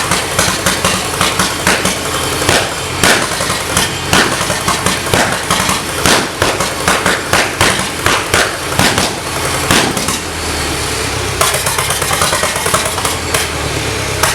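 A 1951 four-cylinder, 5,200 cc gasoline locomotive engine running loud and uneven, with sharp cracks among the firing strokes. About ten seconds in it settles to a steadier run.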